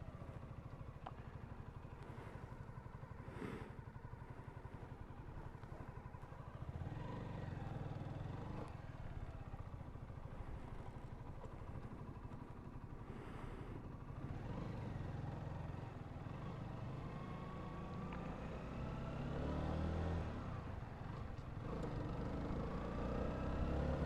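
Honda CBR125's single-cylinder four-stroke engine running on the road, its steady low note swelling louder a few times as the throttle opens and climbing in pitch near the end.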